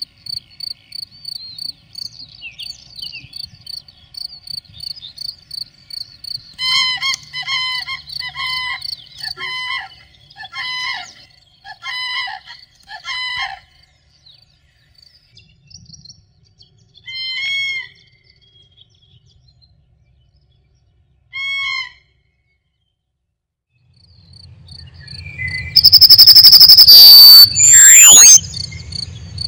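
Meadow sounds: an insect chirp pulsing steadily at a high pitch, with birds calling over it. A quick series of short repeated calls comes from about seven to thirteen seconds in, then two single calls a few seconds apart. Near the end a low wind rumble rises into a loud rushing burst with sweeping tones.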